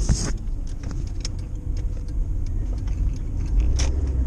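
Car in motion heard from inside the cabin: a steady low rumble of engine and tyres, with light, irregular ticks and clicks running through it and a brief louder rustle right at the start.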